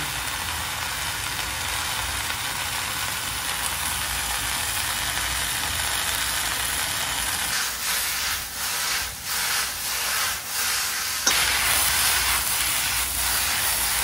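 Shredded potato and radish frying in a hot oiled wok: a steady sizzle that dips several times a little past the middle, then a sharp click about 11 seconds in and the sizzle comes back louder.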